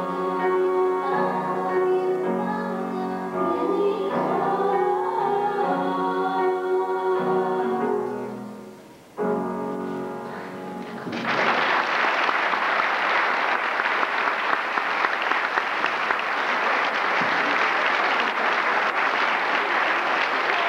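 A small group of female voices singing in harmony through microphones, closing on a held final chord. About eleven seconds in, an audience breaks into steady applause that carries on to the end.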